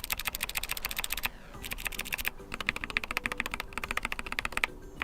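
Keychron K4 HE's F8 and F9 keys, with Nubia linear magnetic switches, pressed rapidly over and over in several quick runs of clicks. The keys sound very scratchy, a fault later traced to loose plastic shavings inside the keyboard.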